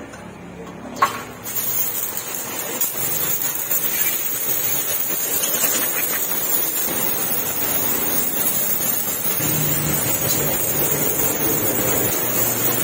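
Pressure washer jet spraying water onto a motorcycle's wheel and engine, a steady hiss with water spattering off metal. It starts about a second and a half in, just after a sharp click.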